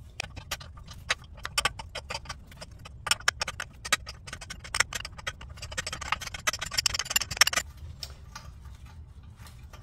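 Hand tools clicking and clinking on the metal of a car's front suspension, with a quick run of clicks about three seconds in and a short scraping rustle around six to seven seconds.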